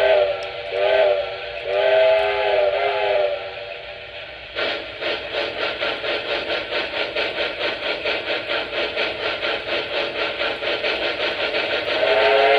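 Electronic sound system of a Lionel K-Line A-5 model steam locomotive: a steam whistle blows two short blasts and a longer one. About a second later steam chuffing starts at a steady pace of about three chuffs a second, and the whistle sounds again near the end.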